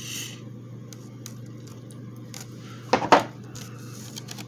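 A steel bolt adapter from a slide hammer puller set clinking against the other metal parts in its plastic case: two sharp clinks close together about three seconds in, with a short paper rustle at the start.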